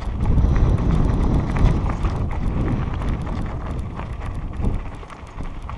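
Mountain bike riding over a rocky gravel trail: tyres crunching over loose stones and the bike rattling and clattering on the bumps. Wind buffets the helmet-mounted microphone, loudest in the first couple of seconds.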